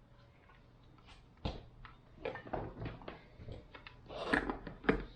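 Light clicks and knocks of a blender lid being set on and fitted in place, sparse at first and louder and more frequent near the end.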